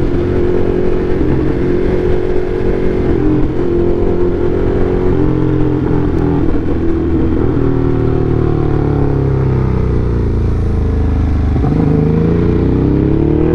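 Motorcycle engine running at a steady pitch under way, with a low rumble of wind noise underneath; about three-quarters of the way through the engine note drops, then rises again as the throttle opens.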